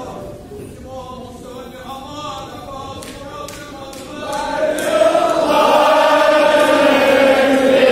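A group of men chanting a Kashmiri marsiya, a mourning elegy, together; the voices are quieter at first, then the whole crowd joins in loudly about four seconds in.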